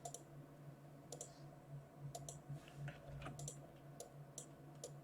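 Faint, irregular computer mouse clicks, about a dozen scattered sharp ticks, as pixels are placed in a drawing program. A steady low hum runs underneath.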